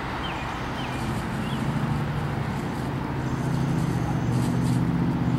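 A car engine running steadily, its low hum growing a little louder about two seconds in, over a steady background hiss.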